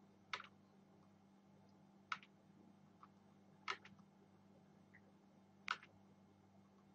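Four single sharp clicks, about two seconds apart, from computer controls paging down through a program, over a faint steady low hum.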